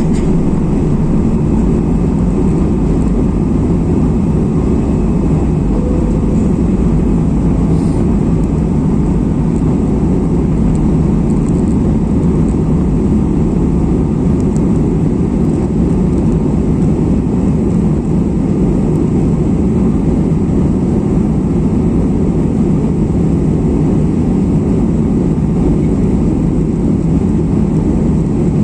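Steady, low cabin roar of an Airbus A320's twin jet engines at climb power mixed with rushing airflow, heard from inside the cabin as the airliner climbs just after takeoff.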